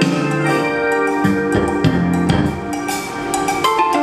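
Recorded music with a drum beat and a bright melodic line, played loud through PA speakers driven by an ATV TD9 power amplifier and fed straight from a phone.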